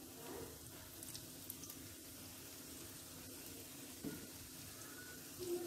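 Faint, steady sizzle of hot oil around almond-filled filo briouates frying in a pan, with a few light crackles about a second in.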